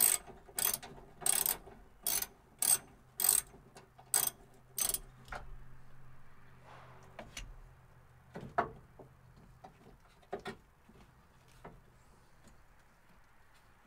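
Socket ratchet wrench worked back and forth in quick strokes, each a short burst of clicking, about eight strokes before it stops some five seconds in. A few scattered knocks follow.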